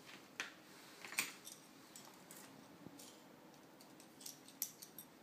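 Steel parts of a fixed-angle knife sharpener being handled: scattered light metal clicks and clinks, the sharpest a little over a second in and a short cluster near the end.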